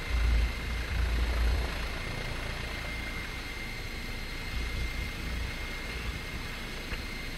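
Helicopter cabin noise in low-level flight: a steady rushing drone with a constant high whine. Heavy low rumbling swells twice in the first two seconds.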